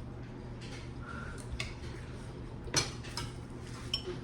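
A few light clicks and clinks of cutlery and dishes during a meal, the loudest a little under three seconds in, over a low steady hum.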